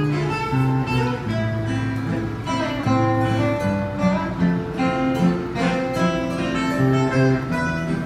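Instrumental background music led by acoustic guitar, with plucked and strummed notes.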